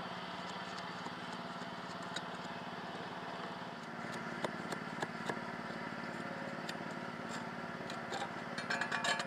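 A small engine running steadily with a constant mid-pitched hum, with a few sharp clicks and knocks scattered through it and bunched together near the end.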